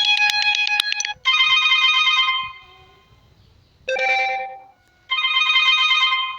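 Ringtone previews from a Sony Xperia smartphone's speaker. Four short electronic melodies, each with a different sound, play one after another. Each is cut off after a second or so and the next one starts, as one ringtone after another is selected in the settings.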